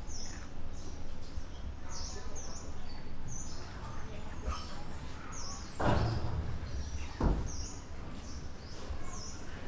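A small bird chirping over and over, short high notes about once or twice a second. A brief rustle comes about six seconds in and a single thump just after seven.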